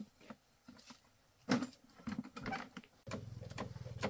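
Scattered clicks and knocks of a metal toolbox and tools being handled. From about three seconds in, a small motorbike engine runs steadily with a fast, even putter.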